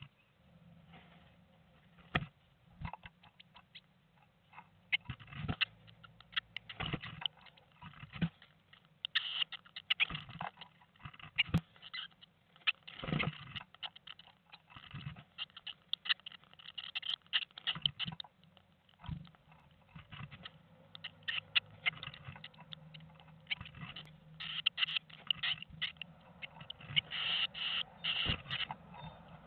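Blue tits shifting about in a wooden nest box, rustling and scratching the moss-and-feather nest with many small irregular clicks and scrapes. They get busier in the second half.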